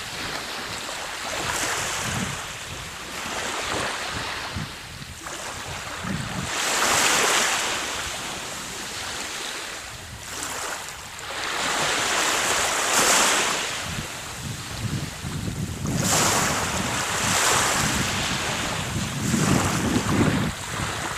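Sea surf breaking and washing up the shore in swells every few seconds, with wind rumbling on the microphone, heaviest near the end.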